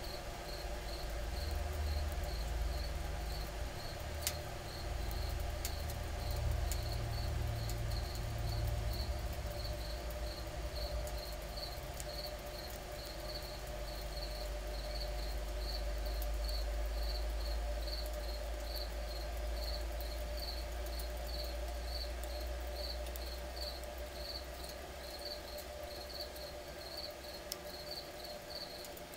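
Twig fire burning in a homemade tin-can wood stove under a pot of water nearing the boil: a low steady rumble with a few faint crackles. A regular high chirp repeats about twice a second throughout.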